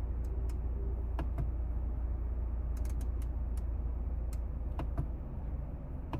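Steady low rumble inside a BMW G20 3 Series cabin, with a scattering of light, sharp clicks and taps.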